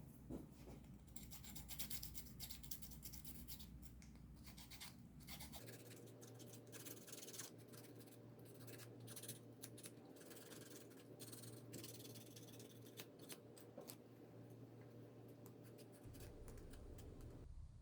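Emery board rubbing over the edges of a cut plywood ornament, a faint, irregular scratching as it sands off the fuzz left by the end mills.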